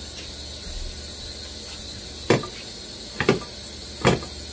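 Three sharp knocks about a second apart, starting about halfway in: a nonstick frying pan being shifted and tilted on a smooth-top electric stove to swirl the oil, over a faint steady hiss.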